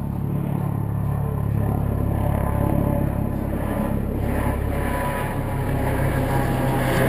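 Steady low rumble of motor-vehicle traffic, with a low engine hum running through it; it grows a little fuller after about four seconds.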